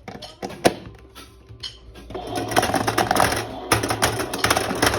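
A few sharp clicks of handling, then about two seconds in a battery-powered toy washing machine starts, its small motor running with a steady hum and a dense clattering rattle.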